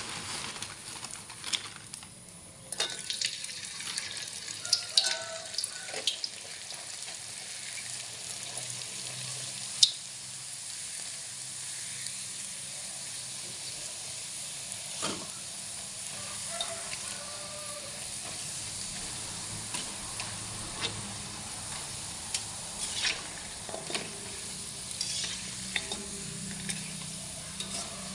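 Food sizzling as it fries in hot oil, with a cooking utensil repeatedly clicking and scraping against the pan as it is stirred.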